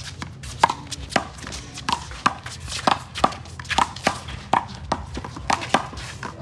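One-wall handball rally: a small rubber handball struck by gloved hands and hitting the wall and court, a rapid, irregular run of sharp smacks.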